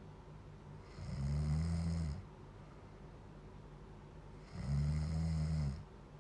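Loud snoring: two snores about a second long each, about three and a half seconds apart. They are nearly identical, so the same snore is repeated as a loop.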